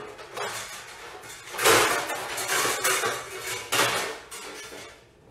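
Metal baking pans clattering and scraping as a cookie sheet is pulled out and handled, a run of knocks and rattles, loudest a little under two seconds in.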